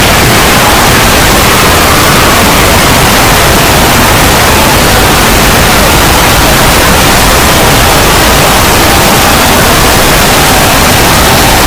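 Extremely loud, steady wall of distorted noise clipped near full scale, like hiss or static with no clear tones or breaks: a heavily over-amplified meme sound effect.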